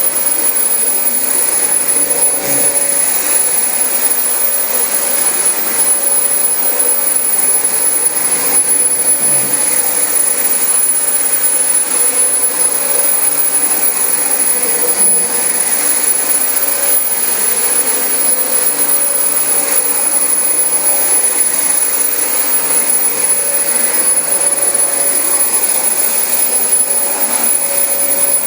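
Dyson DC25 upright vacuum cleaner running steadily on carpet: a constant rushing air noise with a thin high-pitched motor whine, its middle tone wavering slightly as the vacuum is pushed back and forth.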